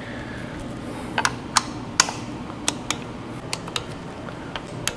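Torque wrench clicking: about nine sharp, irregular clicks as it is set to 50 inch-pounds and worked on the nuts holding down a Holley Sniper 2 EFI throttle body.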